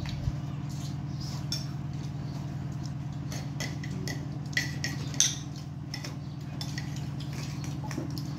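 Spoons and utensils clinking against pots and dishes, a scatter of short clinks with a few louder ones around the middle, over a steady low hum.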